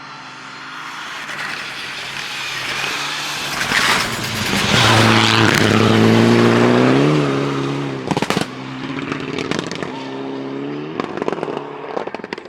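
Rally car approaching and passing at speed, its engine building to its loudest under full throttle. About eight seconds in, the engine note breaks off with a burst of sharp cracks, then carries on with more crackles near the end as it draws away.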